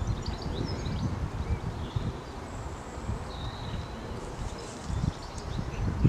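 Wind rumbling on the microphone, with birds chirping in the trees and a couple of thin, high whistles near the middle.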